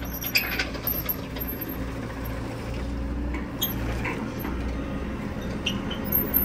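Excavator's diesel engine running steadily, with a few light metal clinks over it.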